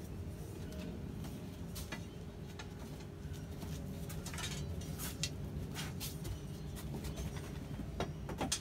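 Light clicks and rustles from small parts and bedding being handled, scattered over a steady low hum, with a cluster of rustling near the end as the bedding is lifted.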